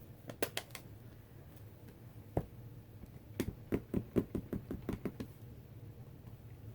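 Light taps of a stamp on an ink pad on a craft desk: a few scattered clicks, then a quick run of about eight taps in the second half as the stamp is inked.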